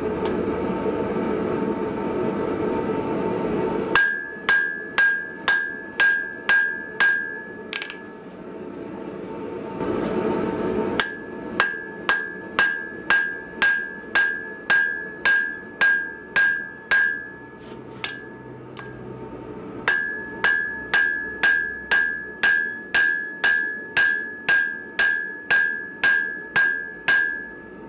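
Hand hammer blows on the end of a red-hot steel bar held upright on an anvil, upsetting the bar, at about two strikes a second in three runs, each blow leaving a short ringing note from the anvil. A steady low roar fills the opening four seconds and the pause between the first two runs.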